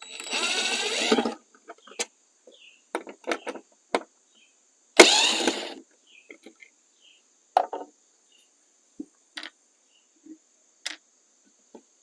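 Cordless power driver with a T15 Torx bit whirring in two short runs, one at the start and one about five seconds in, backing out the two screws that hold a Jeep Wrangler's front turn signal housing. Between and after the runs come scattered light clicks and knocks of the screws and the tool being handled.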